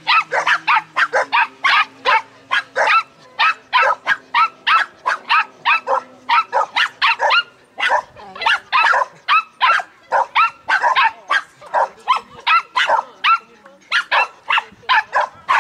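A dog barking over and over in a fast, unbroken run of sharp barks, about two or three a second, pausing only briefly twice.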